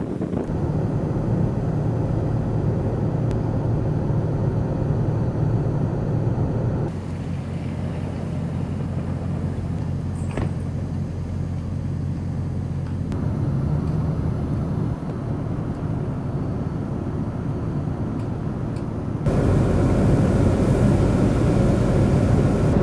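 Steady low rumble of a truck running in a blizzard: engine hum with wind noise over it. The level and tone change abruptly three times.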